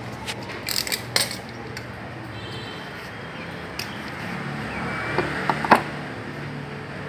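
Cut sign-letter pieces of thin sheet panel clicking and clinking as they are handled and set down on a plastic stool: a scatter of sharp clicks, the loudest about six seconds in, over a low steady hum.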